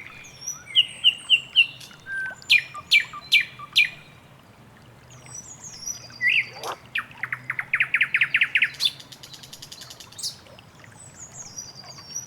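Several birds singing and calling over one another. About two and a half seconds in comes a run of sharp down-slurred notes, and from about seven to nine seconds a fast trill of quickly repeated notes.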